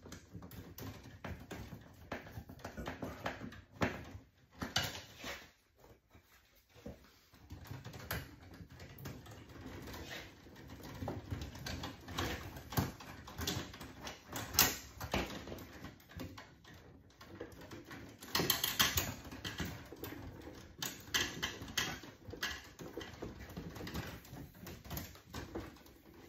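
Wires being handled and fastened inside a residential electrical breaker panel: an irregular run of small clicks, taps and rustles of wire against the metal box, with louder spells of clicking about halfway and two-thirds through.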